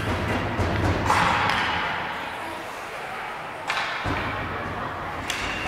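Ice hockey play in a rink: sharp knocks of sticks and puck, two of them standing out in the second half, over a low rumble.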